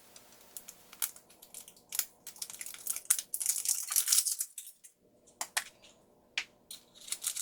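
Surprise egg's packaging being unwrapped by hand: scattered sharp clicks, and crinkling and tearing of the wrapper for a second or two about three seconds in, starting again near the end.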